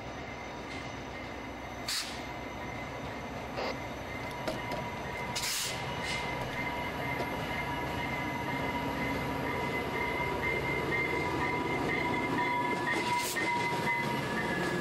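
VIA Rail EMD F40PH-2 diesel locomotive pulling a passenger train past at close range, its engine rumble growing louder as it nears. A steady high-pitched squeal from the wheels on the curve runs through the middle, with a few sharp clicks early on.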